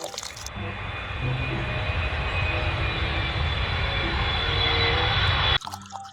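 Airplane engine sound effect: a steady rushing drone that grows louder and cuts off suddenly near the end.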